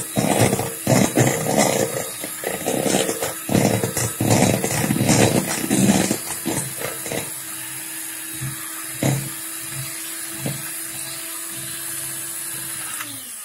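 Electric hand mixer beating egg-and-oil cake batter, its beaters clattering against the bowl for the first six or seven seconds, then running smoothly. The motor winds down near the end as it is switched off.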